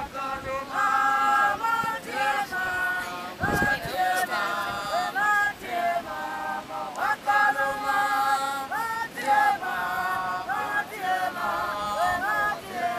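A group of voices singing together in harmony without instruments: several held notes at once, each sliding up into place, phrase after phrase.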